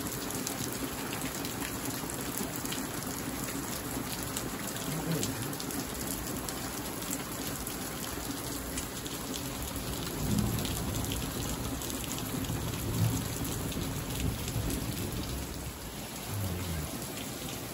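Heavy rain falling steadily, a dense even pattering. A few low rumbles swell up about ten and thirteen seconds in.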